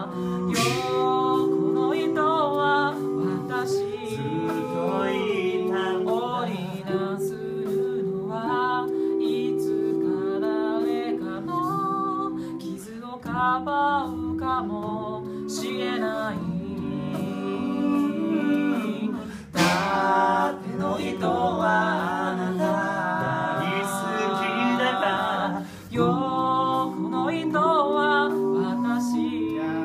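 Six-man a cappella group singing a slow ballad in close harmony: a lead voice moving over chords held by the other voices, with sharp clicks keeping time.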